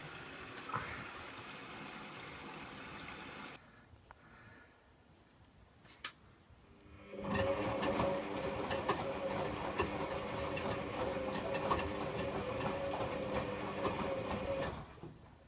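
Servis Quartz 6033 washing machine in its Cottons 40 wash: the drum turns with water sloshing, then stops for a few seconds with a single relay-like click. It then starts turning again with a steady motor hum and light rattling ticks, and stops just before the end.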